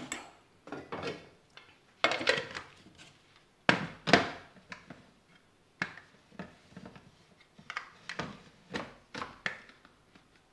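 Irregular knocks and clatter of a stainless-steel mixer-grinder jar full of dried eggshells being handled and seated onto the mixer base, the shells shifting inside. A sharp knock about four seconds in is the loudest.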